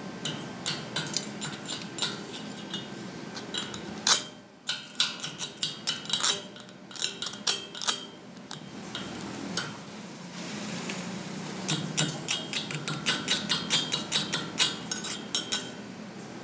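Slag being chipped off a freshly laid 7018 stick-weld bead on steel plate: irregular sharp metallic clinks and taps, with a denser run of quick strikes in the second half.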